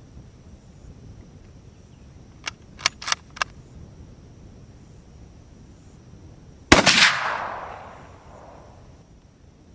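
Four quick, sharp clicks, then about three seconds later a single loud gunshot from a World War-era firearm. The shot rings out and echoes away over about two seconds.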